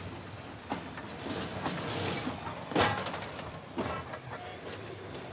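Isle of Man Railway's 3 ft gauge steam tank locomotive No. 13 and its carriages rolling slowly along a station platform, with a run of irregular clanks and knocks from the wheels and running gear, the loudest about three seconds in.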